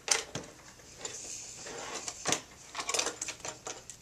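Plastic baby activity table and its toys being handled: a series of clicks, knocks and rattles, with a couple of sharper knocks and a quick run of clicks near the end.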